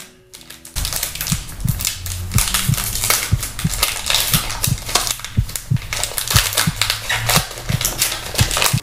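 Crinkling and tearing of an Ernie Ball Paradigm guitar string packet's foil envelope as it is opened by hand, a dense run of crackles starting about a second in.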